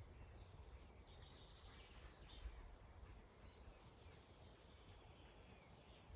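Near silence: faint outdoor ambience with a low rumble of wind on the microphone and a few faint distant bird chirps.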